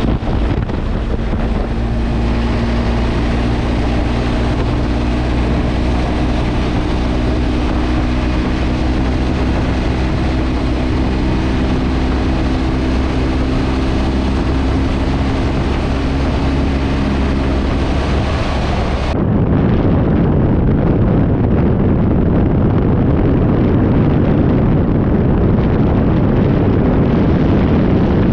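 Motorcycle engine running steadily under way, with wind noise on the microphone. About 19 seconds in the sound cuts abruptly to a duller, heavier wind rumble in which the engine tones are no longer heard.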